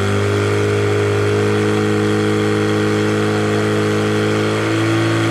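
Portable fire pump engine running hard and steady, pushing water through the attack hoses. Its pitch shifts slightly near the end.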